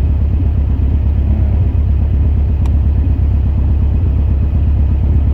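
Birkin Seven sports car driving, its engine and road noise making a steady low rumble.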